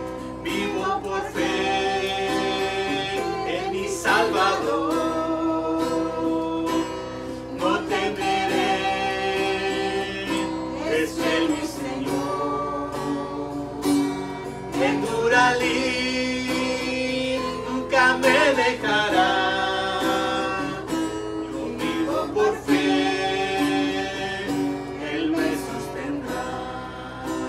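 Acoustic guitar strummed as accompaniment to slow singing of a hymn.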